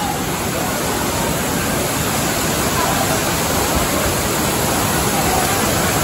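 Steady loud rush of a rain-swollen waterfall and the stream running over rocks below it.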